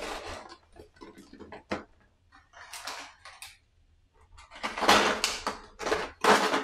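Cardboard game box and its packaging being handled: several separate bursts of rustling and scraping, with short quiet gaps between them.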